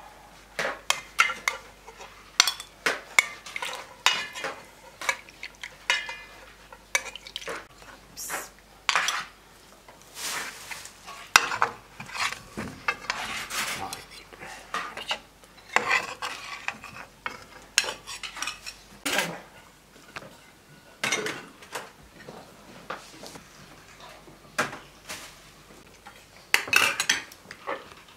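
Metal spoon clinking and scraping against a large aluminium cooking pot and dishes, as stuffed peppers are lifted out of the pot. It is an irregular run of sharp clicks and short scrapes.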